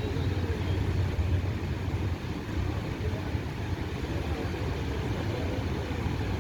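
Niagara Falls' falling water: a steady low rumble that does not change.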